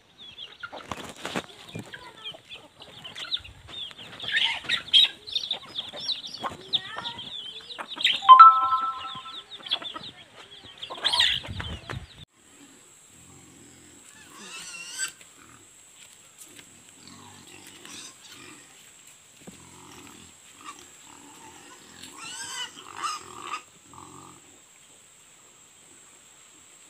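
A flock of hens and chicks feeding on scattered grain: constant high peeping from the chicks with clucks from the hens. About twelve seconds in this stops, leaving quieter scattered animal sounds and a steady high-pitched whine.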